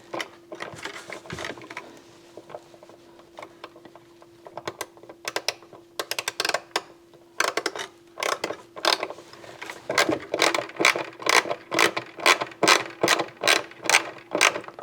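A screw being driven tight with a hand screwdriver inside a speaker cabinet: a run of sharp clicks, sparse at first, then steady at about two and a half a second from about ten seconds in.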